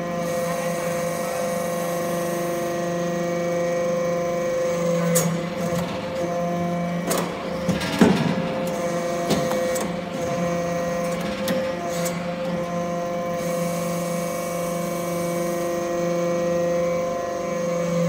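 Hydraulic metal briquetting press running, its hydraulic power unit giving a steady hum. Over it come scattered metal knocks and clanks as briquettes are pressed and pushed out, the loudest about eight seconds in.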